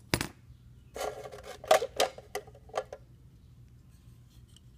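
Loose diecast toy cars clicking and clattering as they are handled, set down and picked up. There is a sharp click at the start, then a run of clinks and knocks for about two seconds.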